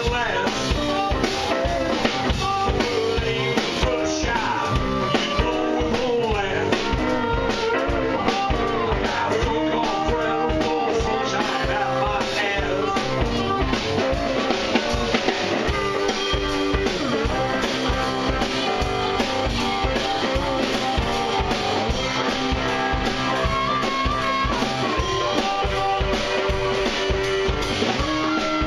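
Live blues-rock band playing: electric guitar, a 1956 Gibson Les Paul Goldtop, over a drum kit keeping a steady beat.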